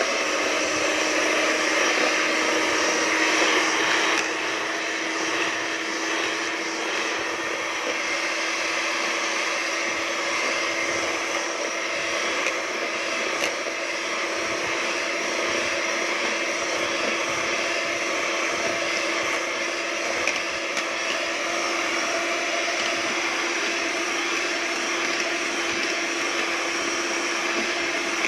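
Handheld electric mixer running steadily, its beaters whipping cream mixed with condensed and evaporated milk: a constant motor hum with one steady whine. It is a little louder for the first four seconds, then evens out.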